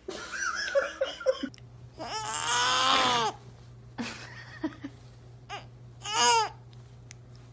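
A baby babbling, then a long high-pitched squealing cry about two seconds in and a shorter squeal about six seconds in.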